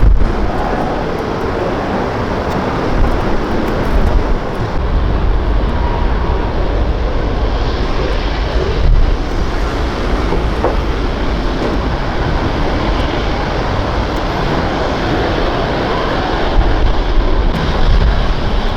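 Aircraft engines running: a loud, steady, deep rumble with a broad rushing noise above it that swells and eases a little.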